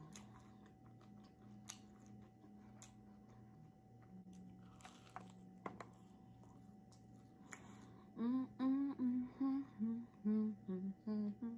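Faint chewing for the first several seconds. Then, from about eight seconds in, a woman hums a short tune with her mouth closed, stepping from note to note; this is the loudest sound.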